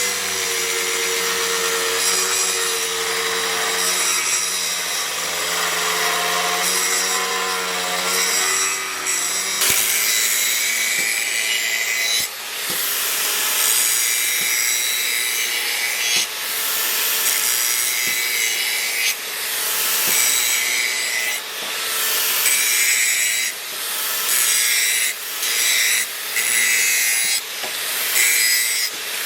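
A power tool's motor running with a slightly wavering pitch. About ten seconds in it gives way to a repeated rasping, grinding or sanding noise in strokes, coming roughly once a second towards the end: steel or a knife handle being shaped.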